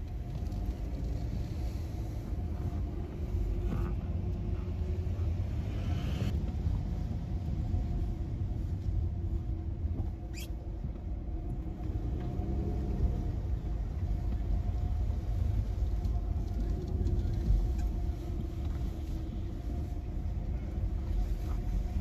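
Car driving on wet city streets, heard from inside the cabin: a steady low engine and road rumble, with a short high squeak about ten seconds in.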